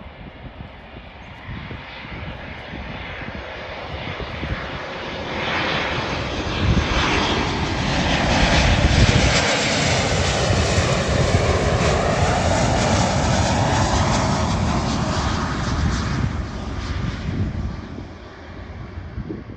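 Turbofan engines of an Embraer E-Jet airliner on final approach with its landing gear down. The jet noise builds as it comes in low overhead, is loudest about nine seconds in, then fades as the aircraft descends to the runway.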